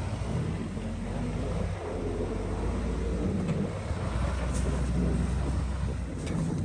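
Vehicle engine running with a steady low rumble that swells for a couple of seconds in the middle.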